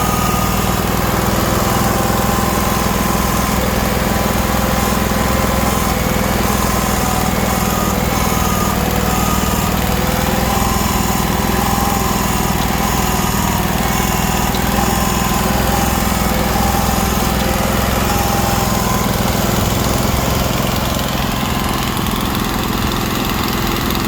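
Engine of a 2002 Vermeer SC252 stump grinder running steadily, a little quieter from about 21 seconds in.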